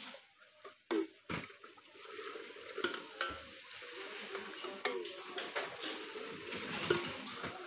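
Aloe vera juice poured in a long stream from a raised steel jug into a steel pitcher, a steady splashing pour. Sharp clinks of the metal jugs come about a second in and a few more times after.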